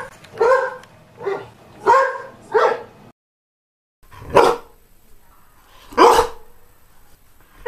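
Greyhound barking: four barks about a second apart, a gap of dead silence, then two more single barks spaced further apart.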